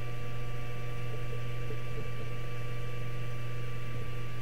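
Steady low electrical hum with a thin, constant higher whine over it, running unchanged.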